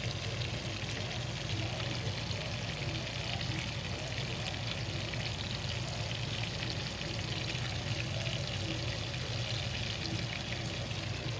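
Buttered lobster tails frying in a stainless steel pan: a steady sizzle with many fine crackling pops, over a low steady hum.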